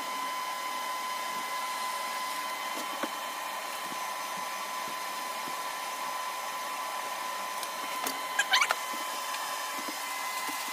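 TIG welding: a steady hiss from the arc with a constant high whine. About eight seconds in, a few short squeaky sounds cut in.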